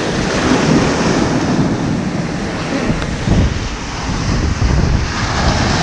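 Sea waves breaking and washing over a rocky shoreline, with wind buffeting the microphone.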